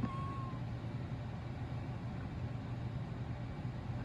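Steady low mechanical rumble, like a running motor or nearby traffic, with a click and a short thin whistle-like note right at the start.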